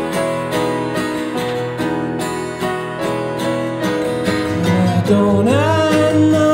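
Live song on strummed acoustic guitar, played in a steady rhythm. About four and a half seconds in, a man's voice comes in singing sliding notes over the guitar.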